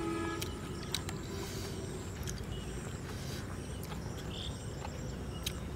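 Quiet rural outdoor background with a faint steady high insect-like tone, scattered light clicks and a short chirp about four seconds in.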